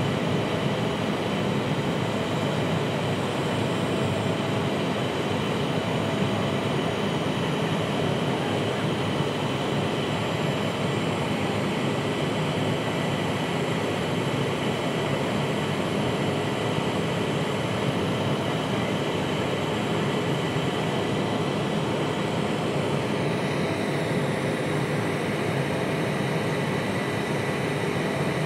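Steady cabin noise inside an Embraer 175 airliner climbing after takeoff: the rush of its General Electric CF34 turbofans and the airflow, with a few steady high whining tones on top. About three-quarters of the way through, the higher whine shifts slightly lower.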